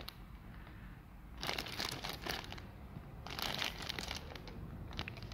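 Thin clear plastic bags of game dice and tokens crinkling and rustling as they are handled, in two spells of a second or two each.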